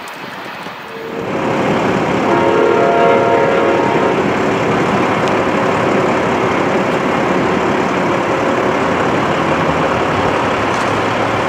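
Freight train of covered hopper cars rolling past close by: a steady rush and clatter of steel wheels on rail that comes in about a second in, with faint ringing tones over it.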